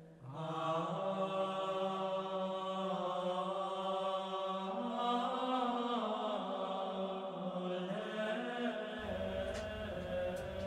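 Background music of slow, chant-like held tones, each long note sustained for several seconds before shifting to a new pitch.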